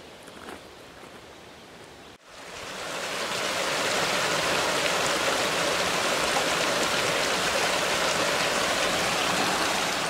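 Faint outdoor ambience, then about two seconds in the steady rushing of a small mountain waterfall cascading down a rocky stream gully fades in and holds.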